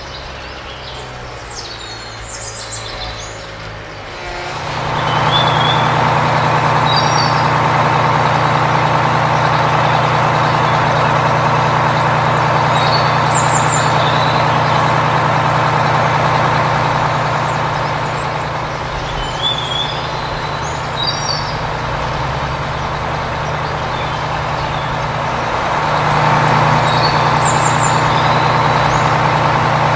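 Small electric motor of a homemade toy dump truck running steadily, starting about four seconds in, dropping slightly partway through and picking up again near the end as the bed tips. Birds chirp now and then.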